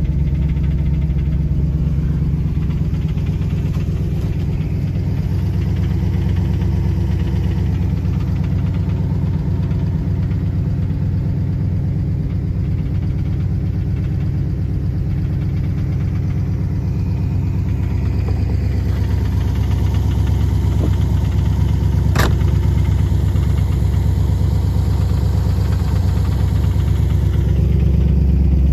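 1964 Studebaker Avanti's V8 engine idling steadily, heard from inside the cabin, with a single sharp click about two-thirds of the way through.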